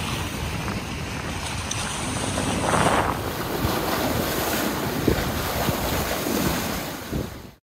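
Wind buffeting the microphone over the wash of sea water past a moving boat, with a stronger rush about three seconds in; the sound fades out shortly before the end.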